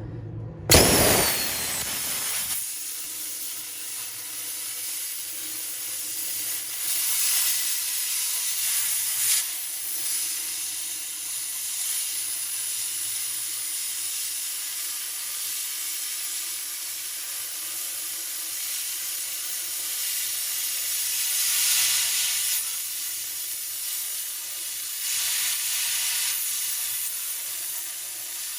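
Plasma cutter striking its arc with a sudden crack about a second in, then a steady hiss of arc and compressed air as it cuts a burner hole through the furnace's steel shell. The hiss swells louder a few times.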